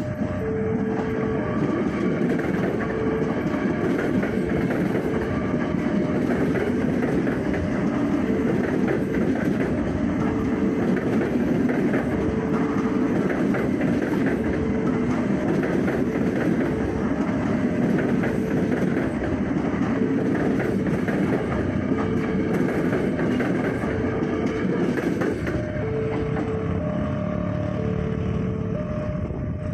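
Electric commuter train passing close by, its wheels clattering over the rail joints in a steady loud rumble. A warning tone beeps repeatedly over it.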